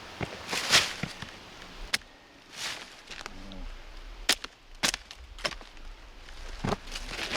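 Axe chopping into a split log to hew its face flat: about six sharp, irregularly spaced strikes into wood.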